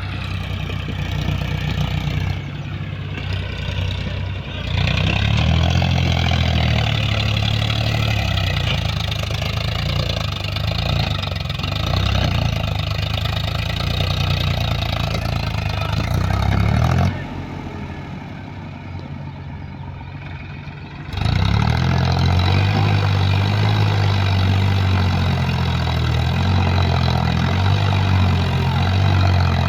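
Diesel engines of a backhoe loader and tractors running, rising and falling in speed as they work. The sound drops abruptly to a lower level for about four seconds around two-thirds of the way through, then comes back.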